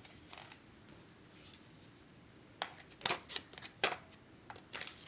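Quiet handling noise: a few short, soft clicks and rustles, mostly in the second half.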